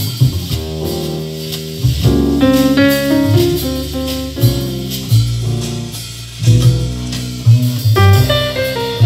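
Instrumental music with guitar and a strong bass line, played back through a pair of vintage Diatone DS-251 three-way alnico-magnet speakers.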